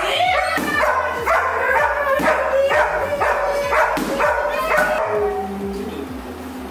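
Young German Shepherd barking in a rapid series of high-pitched yipping barks, about three a second, that stop about five seconds in. It is agitated, protective barking at a staged attack on a person.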